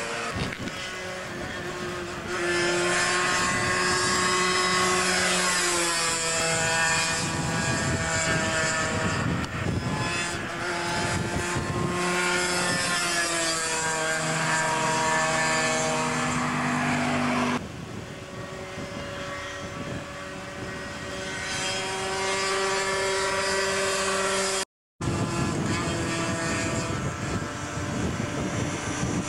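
Sport motorcycles riding fast through a bend one after another, their engine notes rising and falling as they rev up and back off. The sound cuts abruptly once and drops out completely for a moment about 25 seconds in.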